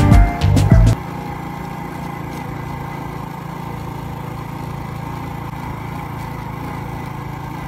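Background music with a heavy beat cuts off suddenly about a second in, leaving a motorcycle engine running steadily at an even pace while riding.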